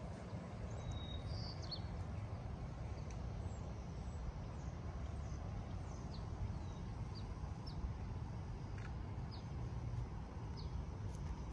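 A steady low rumble, with small birds repeatedly giving short, high, falling chirps every second or so.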